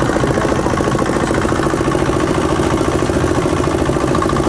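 Boat-mounted air compressor running steadily: a small single-cylinder diesel engine belt-drives a twin-cylinder piston compressor with a fast, even chug. It is pumping air for the divers.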